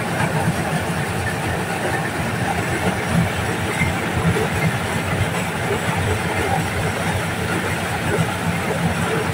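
Diesel-engined corn sheller running steadily while shelling corn: a continuous engine drone with a dense, irregular mechanical clatter from the machine.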